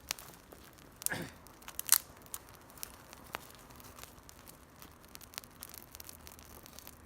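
Dry twigs and leaves crackling and snapping as they are handled and fed onto a small campfire, in scattered irregular clicks with one sharp snap just under two seconds in.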